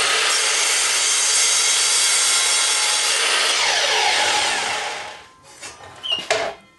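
Power saw cutting through several stacked strips of wood at once, running loud and steady, then winding down with a falling pitch after about four seconds. A couple of short wooden knocks follow near the end.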